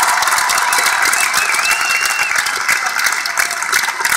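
A large audience applauding, a dense steady patter of many hands clapping, with a brief whistle about a second in.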